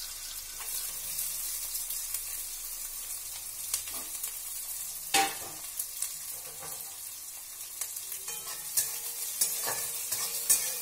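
Chopped onions sizzling steadily in hot mustard oil in a kadhai, with scattered sharp clicks, the loudest about five seconds in. In the last few seconds a flat spatula stirs them, scraping and tapping against the pan.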